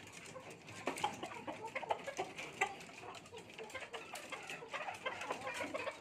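Chickens clucking in short, scattered calls, with light clicks and knocks.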